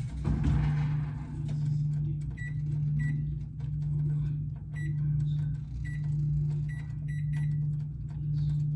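A kitchen appliance humming steadily, its loudness swelling and fading about once a second, with faint light ticks now and then.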